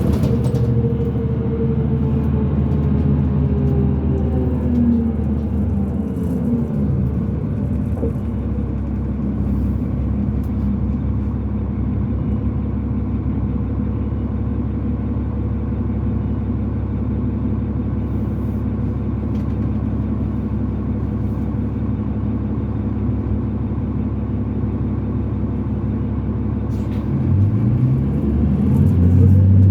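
2005 New Flyer D40LF transit bus's Cummins ISL diesel engine and ZF automatic transmission running under way; the engine note falls over the first several seconds, holds steady for most of the stretch, then climbs and grows louder near the end as the bus accelerates.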